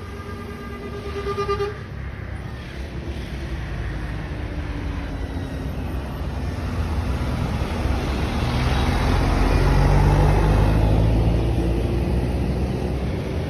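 A bus horn sounds one held note for under two seconds and cuts off sharply. A heavy bus engine then rumbles, growing louder to a peak about two-thirds of the way through before easing, as the bus drives past.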